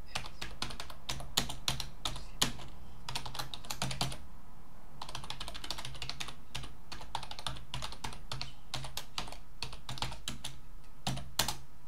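Typing on a computer keyboard: quick runs of key clicks, with a pause about four seconds in and another near the end, closed by two stronger key strokes.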